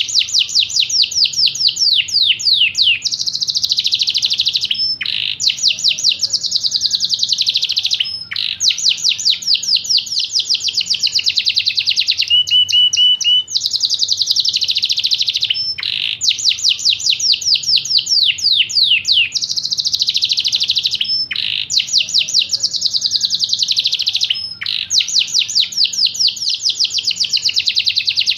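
Yorkshire canary singing a long, loud song of rapid trills and rolls. The phrases break off briefly every few seconds and start again.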